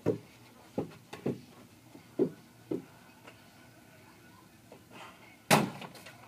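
A few dull thumps in the first three seconds, then a loud hollow thud as a ball drops into a plastic bucket about five and a half seconds in, with a short clatter after.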